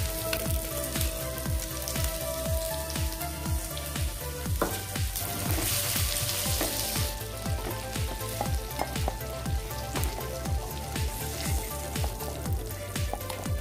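Dried fish frying in mustard oil in a clay kadai: a steady sizzle that swells louder for a moment around the middle as the pieces are stirred with a wooden spoon.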